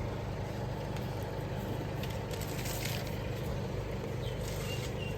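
A vehicle engine idling steadily, with a few faint rustles over it.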